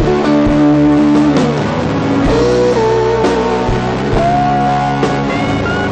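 Live rock band with an electric guitar playing a lead line of long held notes that slide and waver in pitch, over a band with drum hits.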